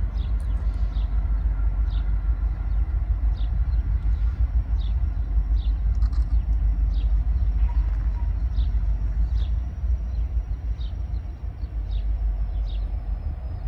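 Steady low outdoor rumble with a small bird repeating a short chirp about every three-quarters of a second, and a faint thin high whine in the background.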